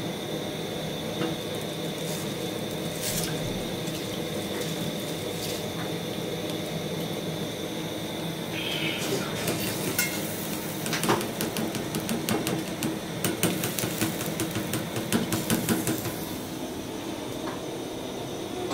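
Rice being tipped from a plastic colander into an aluminium pot of water on a gas burner: a dense run of quick clicks and taps from about nine to sixteen seconds in, over a steady hiss.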